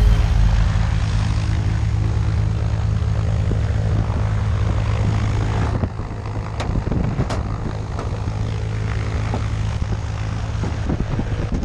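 Single-engine light propeller plane running on the ground: a steady low engine drone and propeller wash. A few sharp knocks come around the middle as people climb into the cabin.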